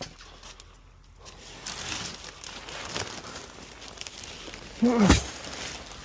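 Rustling and crinkling of debris being handled, with a short, loud, low grunt-like vocal sound about five seconds in that drops sharply in pitch.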